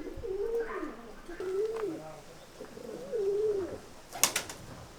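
Pigeons or doves cooing: a few soft, wavering coos about half a second each. A short sharp click comes about four seconds in.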